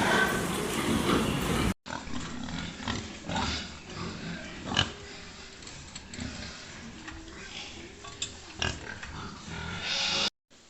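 Pigs grunting, with scattered knocks and clicks; the sound drops out briefly twice, just before two seconds in and again near the end.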